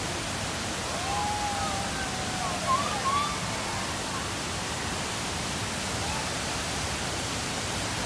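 Steady rush of a waterfall and river rapids, an even hiss of falling water, with a few short, faint calls between about one and three seconds in.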